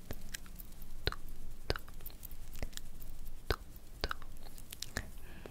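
Close-miked ASMR mouth sounds: wet lip smacks and mouth clicks, roughly one a second at irregular spacing.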